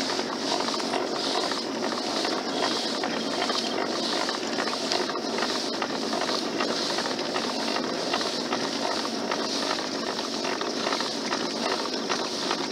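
Human-powered pedal boat's drive running as it is pedalled: a steady rough churning of water and mechanism with a hiss that swells and fades about once a second.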